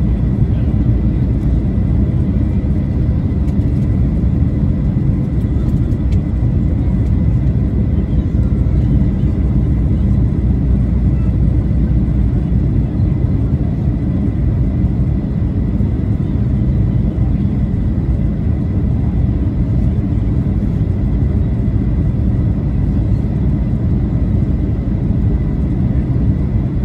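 Steady cabin roar inside a Boeing 737-800 on approach: the low rumble of its CFM56 turbofan engines and rushing airflow over the fuselage, with a few faint steady high tones above it.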